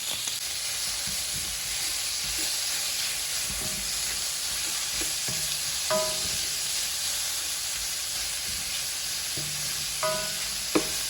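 Bite-sized bacon pieces sizzling steadily as they brown in a frying pan. A single sharp knock near the end.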